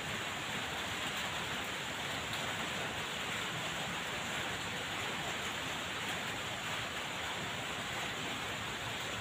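Steady, even hiss of background noise with no distinct knocks, clanks or voices.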